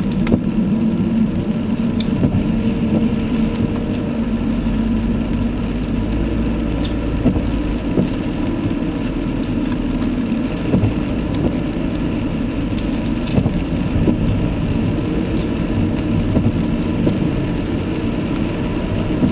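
Car driving along a wet road, heard from inside the cabin: steady engine and tyre noise, with scattered light clicks and rattles.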